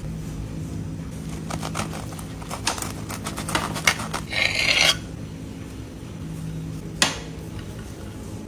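Knife cutting through a grilled chapati wrap on a slate board: a run of small crackling clicks as the toasted crust gives, then a short scraping rasp about four and a half seconds in, and a single sharp tap near the end, over a steady low hum.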